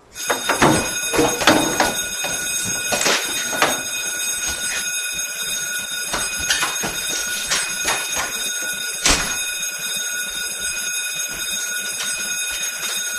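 Smoke alarm going off with a continuous shrill tone that starts suddenly, with several knocks and clatters over it in the first few seconds and another about nine seconds in.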